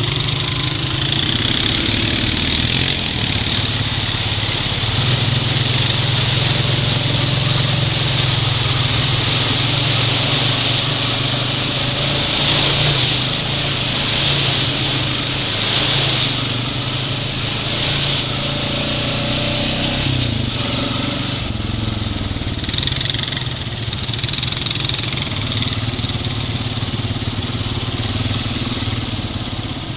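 Honda Rancher 420 ATV's single-cylinder engine running steadily under way on a muddy trail. A high hiss swells several times around the middle, where the tyres run through standing muddy water.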